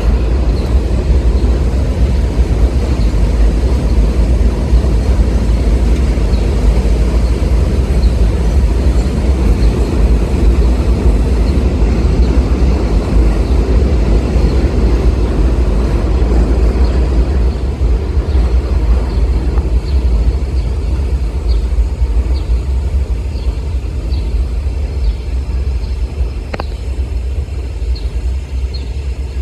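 R32 subway train rolling along an elevated steel structure: a steady, loud rumble of wheels on rails that thins out and quietens in the last third as the cars move away.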